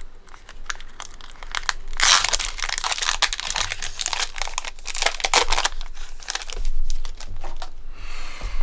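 Foil wrapper of a Pokémon card booster pack being handled and torn open: a few light crinkles, then from about two seconds in several seconds of dense crinkling and tearing.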